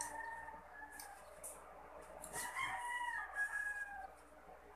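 A rooster crowing twice, the second crow starting about two seconds in, over short crunching clicks from eating.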